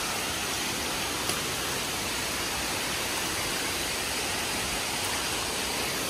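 Steady roar of rushing, falling water from a jungle waterfall and its cascades, an even unbroken rush, with one faint click about a second in.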